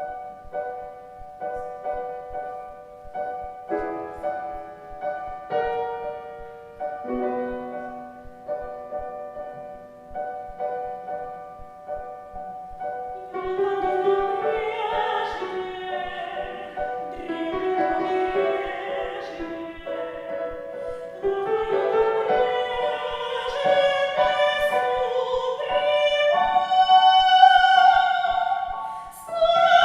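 Piano playing an introduction alone, then about thirteen seconds in a woman's operatic voice enters, singing an operetta arioso over the piano accompaniment and growing louder toward the end.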